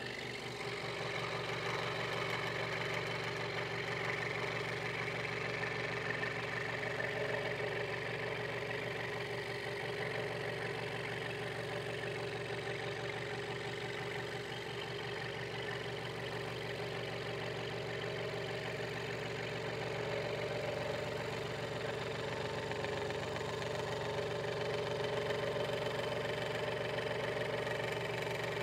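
Hegner Multicut 2S scroll saw running steadily, its blade stroking up and down as it cuts through a thin piece of wood.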